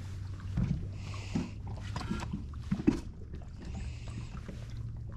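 Sounds aboard a small fishing boat: a steady low hum with scattered light knocks and clicks, and two brief bursts of hiss, one about a second in and one near the four-second mark.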